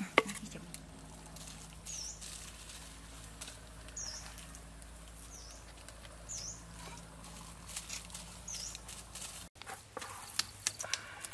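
Light crackling and popping from a chili-glazed pig head roasting on a wooden spit over charcoal, with one sharp pop near the start. A bird gives a short high chirp five times in the background.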